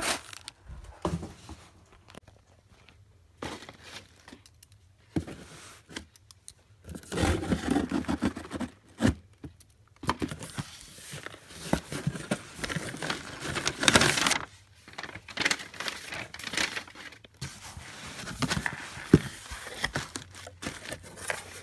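A cardboard shipping box being handled and opened, with plastic air-pillow packing crinkling and rustling and scattered knocks and scrapes, in irregular bursts.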